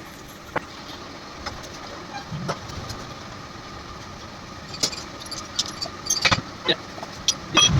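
Scattered light metallic clicks and clinks over a steady background hum.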